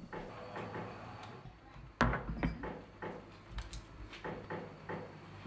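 Glasses set down on a wooden bar counter: a sharp knock about two seconds in, followed by several lighter clinks and knocks.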